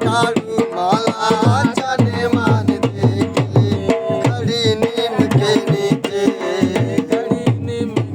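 Instrumental passage of Sindhi folk music: a hand drum playing a quick, busy rhythm under a held drone and a winding melody line.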